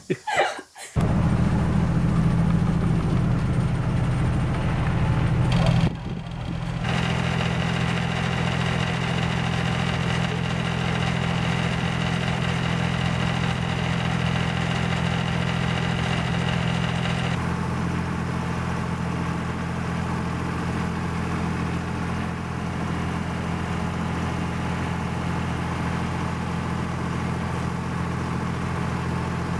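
A boat's engine running steadily, a constant low hum of unchanging pitch. It dips briefly about six seconds in, then carries on.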